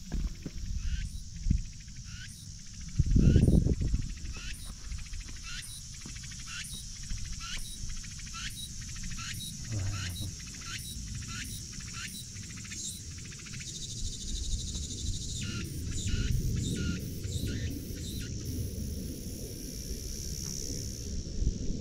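Insects droning steadily in summer woodland, with a short high call repeated about twice a second that stops about two-thirds of the way through. A loud low rush of wind noise hits the microphone about three seconds in, and low rumbling follows near the end.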